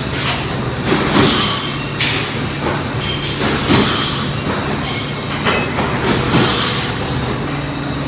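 CNC plasma cutter cutting stainless steel plate: a loud, continuous hiss with a harsh high edge that swells and eases irregularly, over a steady low hum.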